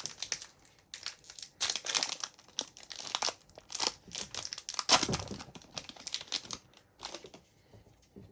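Trading-card pack wrapper crinkling and cards being handled: irregular rustles and scrapes, loudest about five seconds in, growing sparse near the end.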